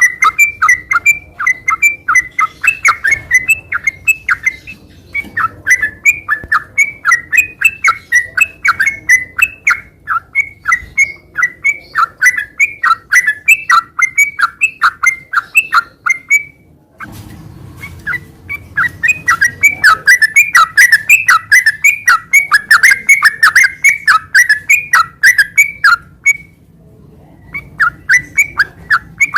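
Yellow-vented bulbul (trucukan) singing hard and continuously: long runs of rapid, short whistled and chattering notes, broken by two brief pauses, one about midway and one near the end.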